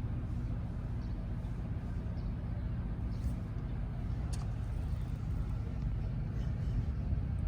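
Steady low hum of a running vehicle engine, with a couple of faint short high sounds near the middle.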